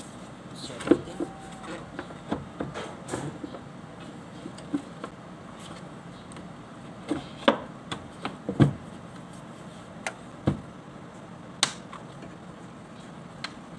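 Plastic engine air filter housing of a Nissan Navara being closed: the lid knocked and pressed into place and its clips snapped shut. Sharp single clicks and knocks come scattered a second or more apart, the loudest a little past the middle.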